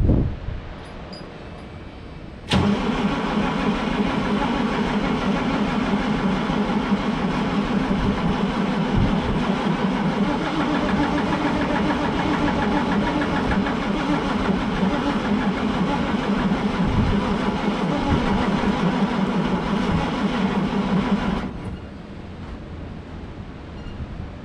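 A knock, then a diesel truck engine is cranked over by its starter for about nineteen seconds with an even, pulsing beat, without firing, and the cranking stops abruptly. The engine is not getting fuel: the tank that feeds its fuel pump turned out to be empty.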